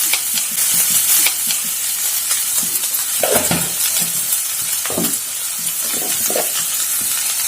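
Crushed onion, ginger and garlic masala sizzling in coconut oil in a pan while it is stirred, with a few scrapes of the stirring utensil against the pan.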